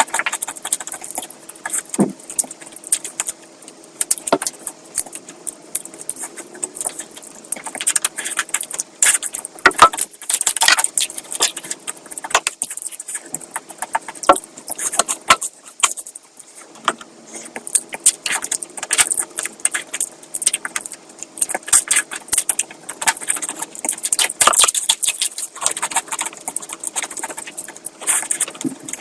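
Close-miked eating sounds of a person eating curry: wet chewing, lip smacks and crisp clicks coming irregularly, with a faint steady hum underneath.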